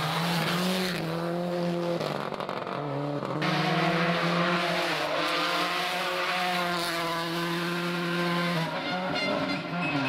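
Rally car engines at high revs through corners: a Subaru Impreza on gravel, then, after a cut about three seconds in, a Volkswagen Polo R WRC on tarmac. The engine note holds high and steps in pitch as the gears change.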